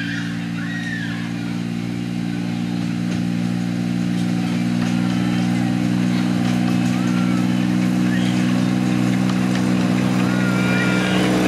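Engine of a miniature narrow-gauge park railway locomotive running steadily as it hauls its carriages, a low even hum that grows louder as the train draws closer.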